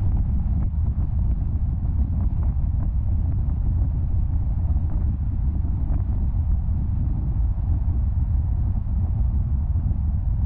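Steady low rumble of a car driving at road speed: tyre and road noise mixed with wind.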